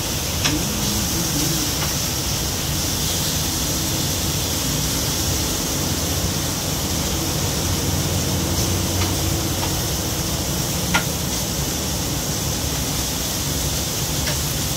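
Shrimp and pork sizzling on a tabletop grill pan, a steady hiss over a low background rumble, with a couple of light clicks, the clearest about eleven seconds in.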